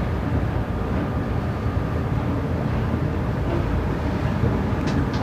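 A yacht under way with a steady low rumble and a faint steady hum, like an inboard engine running at constant speed.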